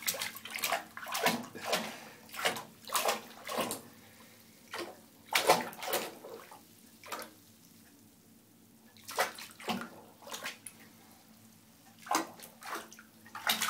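A baby slapping and swishing the bathwater in a tub with his hands, a run of short splashes in bouts, with a quiet gap of a second or two in the middle.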